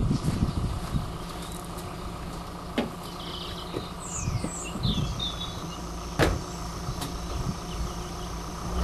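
A vehicle engine idling steadily, with a few sharp clicks and some bird chirps around the middle.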